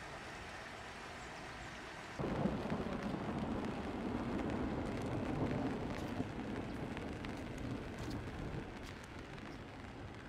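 Steady rain falling, with scattered drops ticking. The sound steps up louder about two seconds in.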